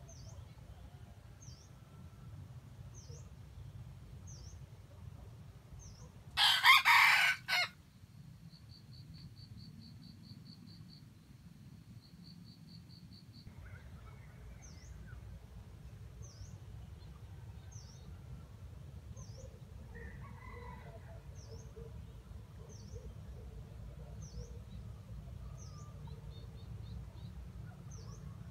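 A rooster crows once, about a third of the way in: a loud, harsh crow of about a second in a few quick parts. Faint high ticks about once a second and soft bird calls continue underneath.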